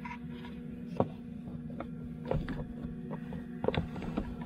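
Hands threading an elastic cord through a wooden shelf frame: a few short knocks and rustles, over a steady low hum.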